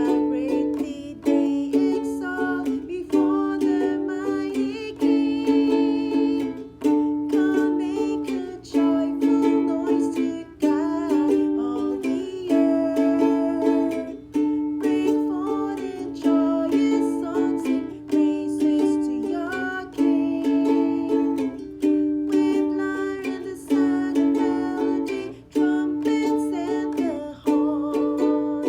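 Music: a strummed string instrument playing chords in a steady rhythm, each strum ringing and fading before the next.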